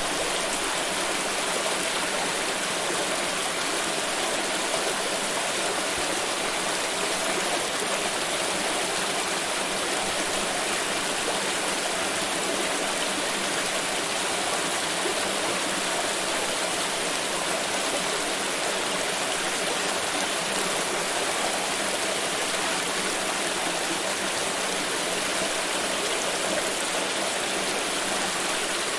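Water pouring steadily: an even, unbroken rush of splashing water.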